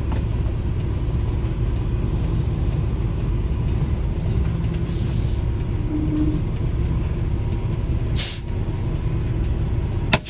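Semi truck running, heard from inside the cab as a steady low rumble. Two short bursts of air hiss come about five and six seconds in, a sharper brief hiss near eight seconds, and a click near the end.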